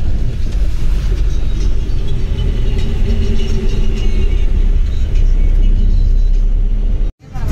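Steady low rumble of a moving road vehicle, with engine and road noise heard from inside it.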